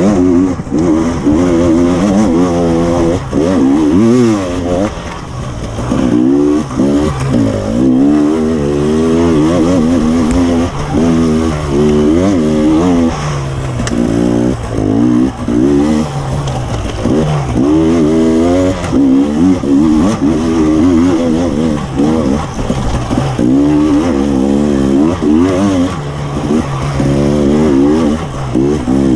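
KTM 300 EXC TPI two-stroke single-cylinder enduro engine being ridden hard, revving up and down continually as the throttle is worked on and off, its pitch climbing and falling every second or two.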